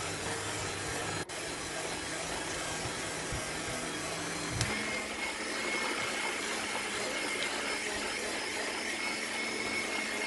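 Electric hand mixer with dough hooks running steadily through crumbly shortbread-style cookie dough. About halfway through, a low hum drops away and a steady higher whine comes in.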